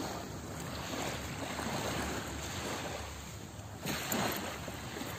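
Steady rush of surf and wind at the beach, with a brief bump about four seconds in.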